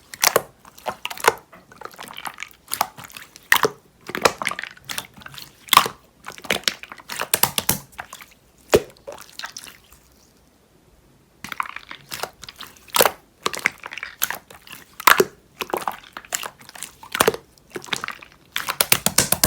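Hands squishing and pressing slime, making irregular wet clicks and pops as air bubbles burst, with a pause of about a second and a half around the middle.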